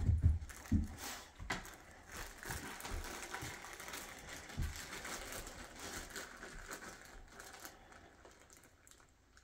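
Plastic treat bag crinkling and rustling in a hand, with a few soft low thumps in the first second, the rustling dying away toward the end.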